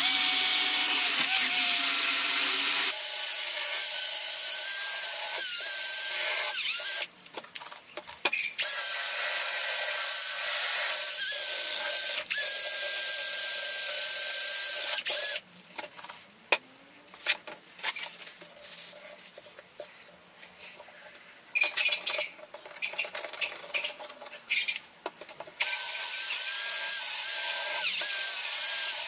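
Cordless drill with a foam polishing pad running at low speed against a steel axe head, with a steady motor whine. It stops about seven seconds in and again about halfway, with short trigger bursts between, then runs steadily again near the end.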